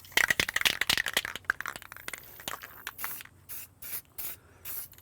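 Aerosol can of self-etching primer being sprayed. A quick clatter of sharp clicks over the first two seconds, then several short hissing spray bursts from about three seconds in.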